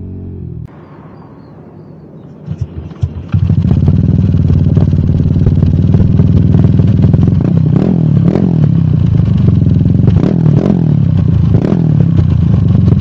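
Motorcycle engine running through a JVT V4 teardrop aftermarket exhaust pipe, recorded right at the pipe. It comes in loud about three seconds in after a few clicks, and is revved up and down several times.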